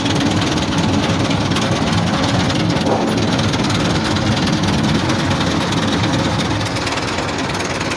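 Papad-factory machinery running steadily with a loud, dense rattle.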